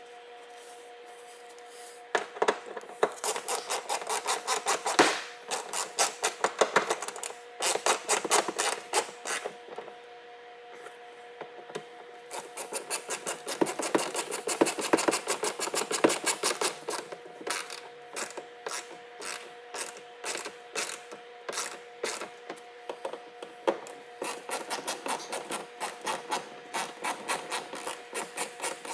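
Hand socket ratchet clicking in runs of rapid, even clicks, with short pauses between, as it drives the screws holding the plastic wheel-well liner.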